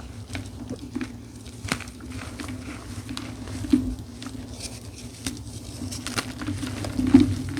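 Dyed gym chalk with a charcoal-coloured crunchy topping being crushed: a run of irregular dry crunches and crumbling, with the loudest crunch about seven seconds in.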